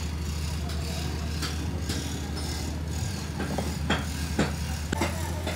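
A steady low mechanical drone, with several light, sharp clicks in the second half as a toothed steel brake disc is handled and wiped with a cloth.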